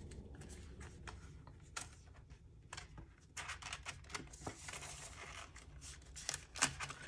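Faint rustling and crinkling of Canadian polymer banknotes and plastic binder envelopes being handled, with scattered light clicks and taps. The rustling is busiest in the second half.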